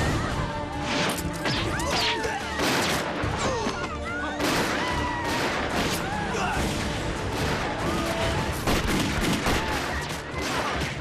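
Action-drama battle soundtrack: bursts of gunfire and sharp impacts in quick succession, mixed with dramatic music and shouting voices.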